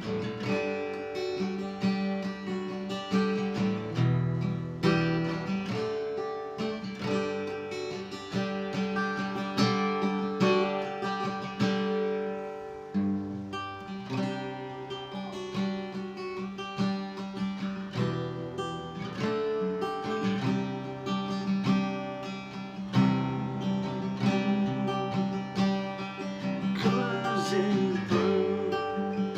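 D&D Django Jr. mahogany acoustic guitar played unamplified, a continuous run of strummed and picked chords.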